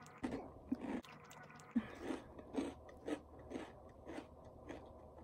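Someone chewing a mouthful of crunchy chickpea puffs, with a steady crunch about twice a second.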